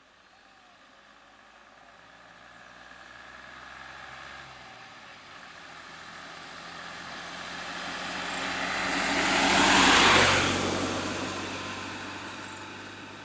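A light truck drives past close by. Its engine and tyre noise grows louder to a peak about ten seconds in, then fades away.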